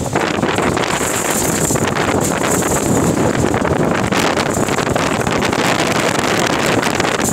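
Steady wind buffeting the microphone over the engine and tyre noise of an open safari vehicle driving on a dirt track.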